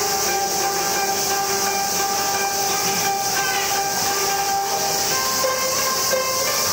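Traditional Japanese ensemble music: two shakuhachi bamboo flutes holding long sustained notes over plucked koto, the held notes moving up to a higher pitch about five seconds in.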